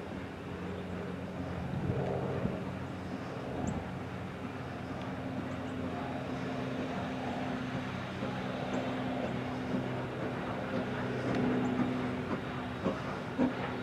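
Strasburg Rail Road steam locomotive with its passenger train approaching, a steady low rumble that grows gradually louder, with sharp clicks starting near the end.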